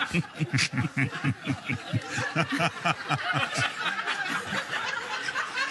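A group laughing, with one person's rapid, pulsing laugh standing out, easing off near the end.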